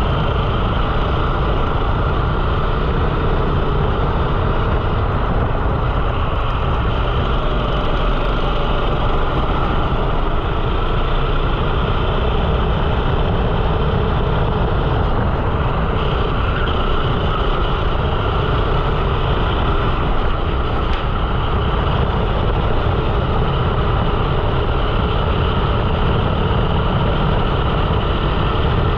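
A 13 hp four-stroke single-cylinder rental kart engine running steadily at speed, heard from onboard the kart.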